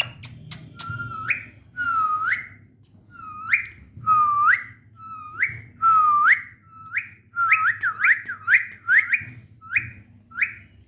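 A run of about fifteen short whistles, each dipping slightly and then sweeping upward, which come faster and closer together around the middle. A couple of sharp clicks come right at the start.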